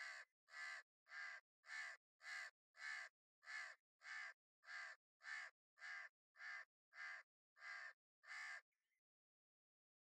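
House crow cawing: a steady series of about fifteen short, harsh caws, roughly one every 0.6 s, stopping about nine seconds in.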